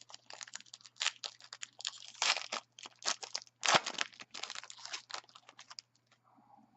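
Foil trading-card pack wrapper crinkling and tearing as it is opened by hand, in quick irregular rustles with louder crackles about a second in, past two seconds and near four seconds, stopping at about six seconds.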